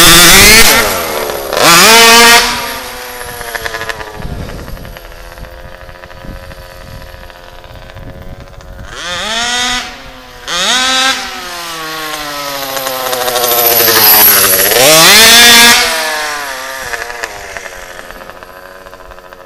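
RCMAX 90cc two-stroke engine in an HPI Baja 1/5-scale RC buggy, revving hard in bursts close by at the start and fading as the car runs away. Near 9–11 seconds there are two more rev bursts, then the engine swells as the car races back, passing about 15 seconds in, and its pitch drops as it recedes.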